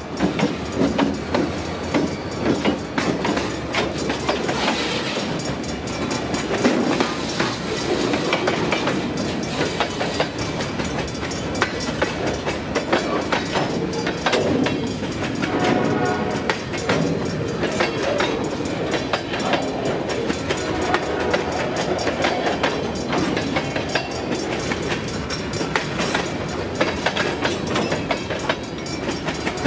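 Freight train rolling through a grade crossing: a CSX GP40-2 diesel locomotive passes at the start, then a long string of empty gondola cars follows, their wheels clacking steadily over the rail joints. A Safetran Hybrid crossing bell rings over it, and there is a brief wheel squeal about halfway through.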